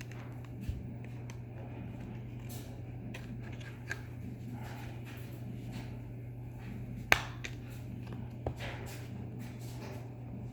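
Common screwdriver prying at the plastic shell's snap tabs: scattered small clicks and scrapes of metal on plastic, with a sharper click about seven seconds in and another a little later, over a steady low hum.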